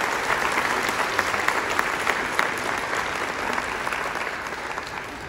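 An audience in a large hall applauding, many hands clapping at once. The applause is loudest in the first few seconds and fades near the end.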